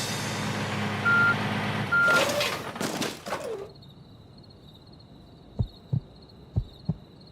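Cartoon garbage truck sound effects: a low engine rumble with two short reversing beeps about a second apart, then a hiss like an air brake. Four short low thumps follow near the end.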